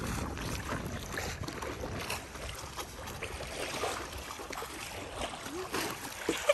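Paddle strokes splashing in choppy lake water and small waves lapping against a paddle board, with wind buffeting the microphone.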